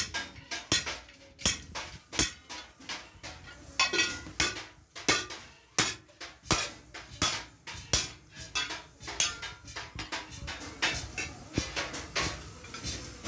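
Iron tawa griddles clanking and clinking: sharp metal knocks about twice a second, some ringing briefly.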